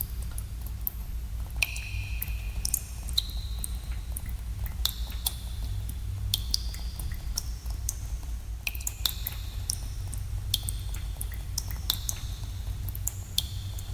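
Water drops falling irregularly in a cave, each landing as a sharp plink with a short ringing tone, sometimes several in quick succession. Under them runs a steady low rumble.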